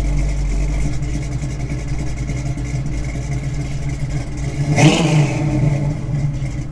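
1967 Chevrolet Camaro SS's roughly 6.5-litre V8 idling through its exhaust. About five seconds in there is a single quick blip of the throttle, rising and falling in pitch, which is the loudest moment.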